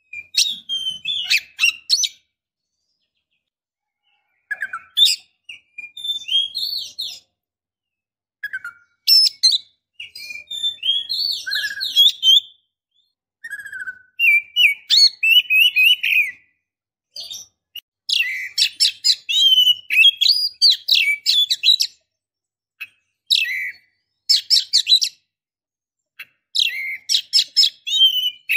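Female Oriental magpie-robin (kacer) in breeding condition calling: a series of short bursts of rapid chirps, whistled notes and trills, about eight phrases with brief pauses between them.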